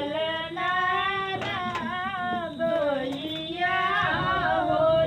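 A woman's voice singing a sohar, the traditional North Indian folk song for a child's birth, in long held notes that slide up and down in pitch, with brief breaths between phrases.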